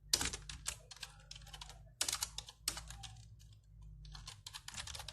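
Typing on a computer keyboard: three quick runs of keystrokes with short pauses between them, as a search is typed in.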